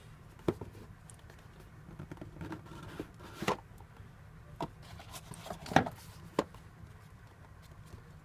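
Packaging of a boxed bike light being handled and opened by hand: scattered light clicks, taps and rustles, with the strongest knocks about halfway and a little after.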